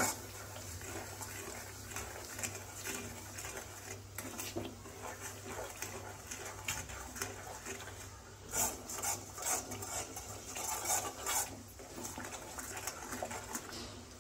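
A spatula stirring and scraping a thick Mysore pak batter of gram flour, sugar, ghee and oil around a kadai, in irregular scrapes and clinks. The stirring is kept up without pause so the mixture does not stick and burn on the bottom. A steady low hum runs underneath.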